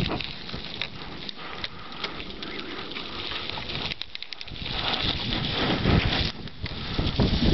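Mountain bike rolling over rough, stony trail: tyres crunching and the bike rattling with constant small clicks, with wind buffeting the microphone in heavier gusts in the second half.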